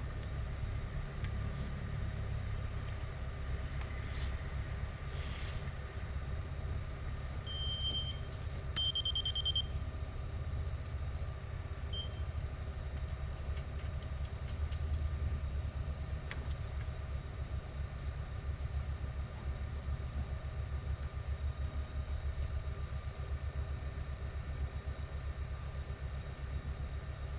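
Heavy earthmoving machine's diesel engine running steadily, a low rumble, with a few short high-pitched electronic beeps about eight seconds in, around twelve seconds and near the end.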